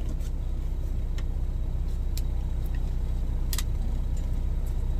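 Steady low hum of a semi-truck's engine idling, heard inside the cab, with a few light clicks.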